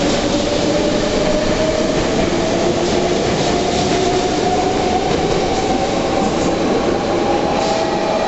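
Meitetsu 7000 series Panorama Car electric train pulling out and accelerating: a steady whine from its traction motors rises slowly in pitch over loud running and wheel-on-rail noise, with a few faint knocks.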